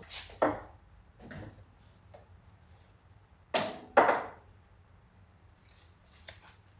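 A Cookworks countertop mini oven being handled and set down on a granite worktop: a few light knocks, then two loud thumps about half a second apart past the middle, and soft clicks near the end.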